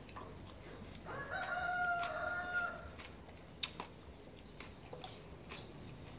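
A rooster crows once, one long call of about two seconds starting about a second in. A sharp click follows, with a few lighter ones, from a metal spoon against a ceramic bowl.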